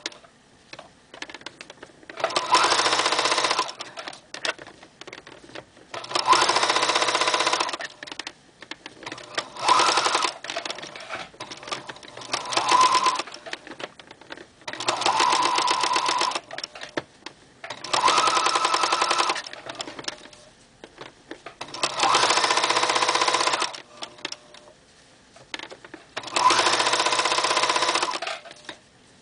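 Electronic sewing machine stitching stretched lycra binding onto a garment edge in short runs of one to two seconds, stopping and starting about eight times as the binding is guided. Faint clicks and fabric rustle fill the gaps between runs.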